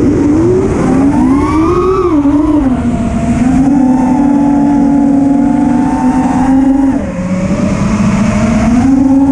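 Motors of an FPV freestyle quadcopter (Lumenier 2407, 2500 kV, on 4S) spinning 5-inch GemFan Hurricane propellers, a buzzing whine that follows the throttle. It rises in pitch about a second in, falls back, holds steady for a few seconds, dips sharply about seven seconds in, then climbs again.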